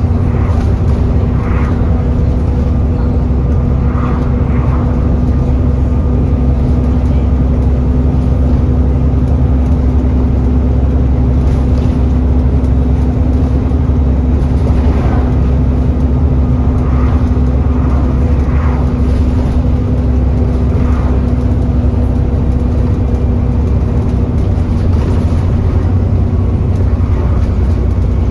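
Alexander Dennis Enviro400 E40D bus running with a loud, steady low drone and a steady whine over it: the 'hoover' noise, which comes with the bus overheating.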